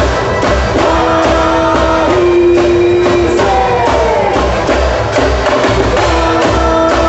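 Quadrilha dance music with a steady beat of about two beats a second and held melody notes over it.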